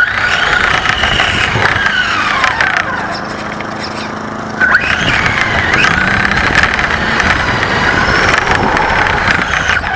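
RC car motor whining, its pitch rising and falling as the car speeds up and slows down. About halfway through it eases off, then picks up again sharply.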